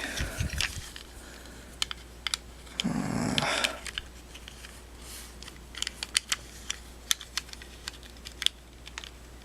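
Scattered light clicks and taps from small plastic Beyblade parts being handled, with a short rustle about three seconds in.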